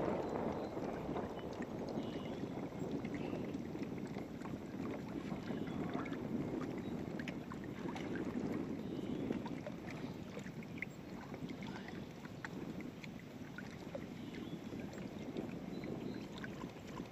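Steady outdoor water-and-wind noise around a small open fishing boat: water lapping at the hull and wind on the microphone, with a few faint ticks scattered through.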